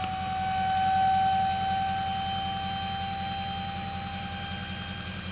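Dump trailer's electric hydraulic pump running with a steady whine and a low, fast pulsing underneath as it raises the bed under a heavy log load. It is loudest about a second in.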